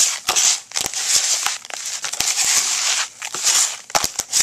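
Hands squeezing and stirring damp sand mixed with gravel in a bucket: a gritty crunching and scraping in repeated strokes, with sharp little clicks.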